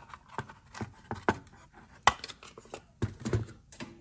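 Handling noise as a switching power-supply circuit board is taken out of its device: irregular sharp clicks and light knocks, a few each second.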